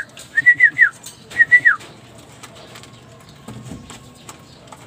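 High, clear whistled notes, each short phrase wavering and ending in a downward slide, two phrases in the first two seconds. After them come faint scattered clicks of pigeons pecking grain from feed dishes.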